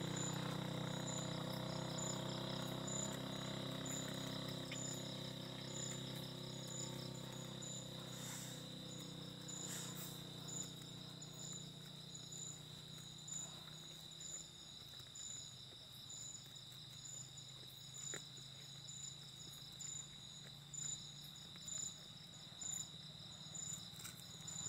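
Insects chirping at dusk: a steady high trill with a higher chirp pulsing at a steady rate, roughly once a second. A low hum underneath fades out about halfway through.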